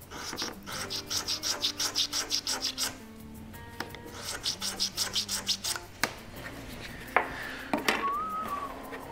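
Quick back-and-forth rasping strokes of a hand tool trimming the edge of a thin wooden hull plank, about five strokes a second, in two runs with a short pause between. A couple of sharp knocks follow near the end.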